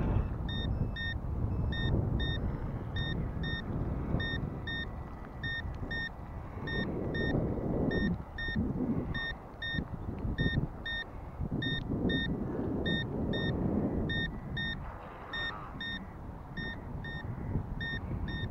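RC boat transmitter beeping out a warning, short high beeps at about two a second, as the boat's main battery dies.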